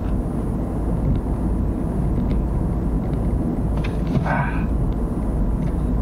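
Steady rumble and road noise of a moving vehicle, with a brief pitched, voice-like sound about four seconds in.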